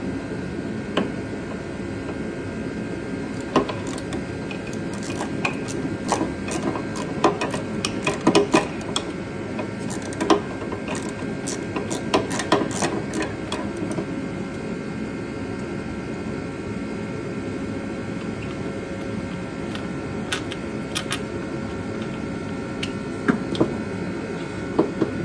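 Scattered metal clicks and taps of hand work on a car's underside by the transmission bellhousing, over a steady mechanical hum.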